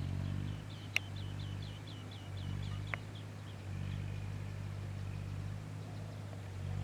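A songbird sings a fast trill of about a dozen downslurred high notes, starting about a second in and lasting about two seconds, with a couple of sharp chirps. Underneath runs a steady low engine hum.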